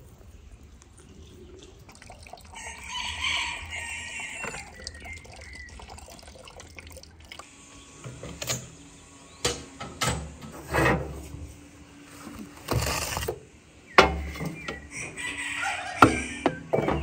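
Metal baking tray handled and slid into a wood-burning stove's oven: scattered knocks and clanks of metal on metal, with a couple of sharp clacks and a clattering slide near the end as the tray goes in.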